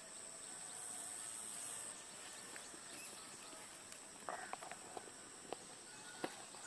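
Faint outdoor ambience dominated by a steady high-pitched insect buzz, with a few short chirps and scattered faint clicks from about four seconds in.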